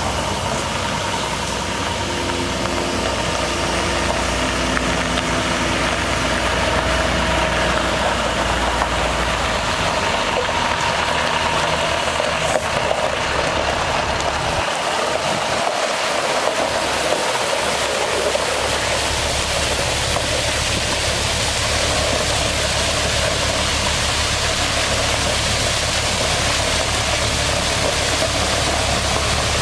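International MaxxForce DT inline-six diesel engine running steadily with the PTO water pump engaged, under an even hiss of water spraying from the truck's spray heads and spray bar. The low engine sound drops away for a few seconds about halfway through, then returns.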